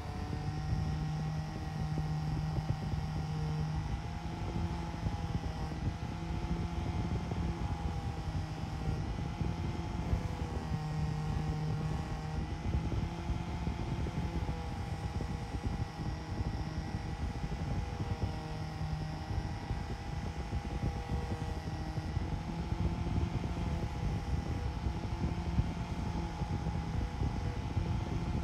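Bench-mounted angle grinder running steadily while a rusty knife blade is held against its spinning disc. Its high whine sags slightly in pitch now and then as the blade is pressed on.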